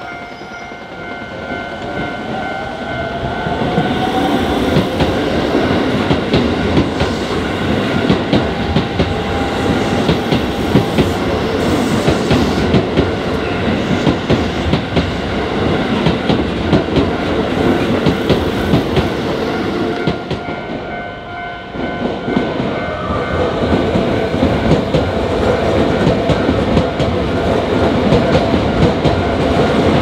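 Two electric trains pass over a level crossing one after the other, wheels clattering over the rail joints: a Keisei commuter train builds up over the first few seconds, and after a short lull about twenty seconds in, a Keisei Skyliner express follows. The crossing's warning bell rings steadily throughout.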